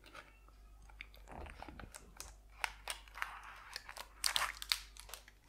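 Cardboard packaging and plastic film crinkling, with small scattered clicks, as a folding phone is lifted out of its box.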